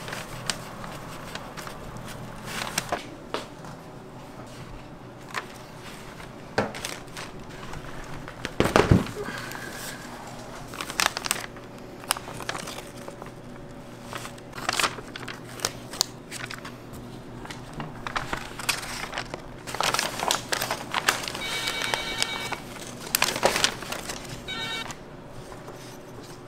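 Baking paper crinkling and rustling as it is peeled and torn away from a large baked castella cake, with scattered knocks and clatter. The loudest sound is a heavy thump about nine seconds in.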